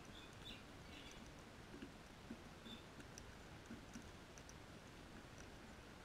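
Faint scattered clicks of sulphur-crested cockatoos and galahs cracking birdseed on paving, with a few soft short bird chirps in the first second and again a little before the middle.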